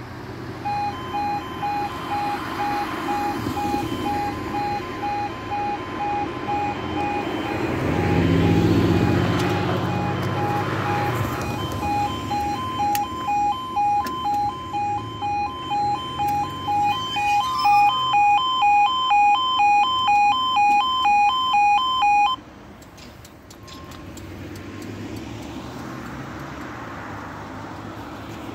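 Railway level crossing audible warning alarm pulsing an electronic tone about twice a second, louder in its last few seconds, then cutting off suddenly about 22 seconds in. A road vehicle passes a few seconds before the midpoint.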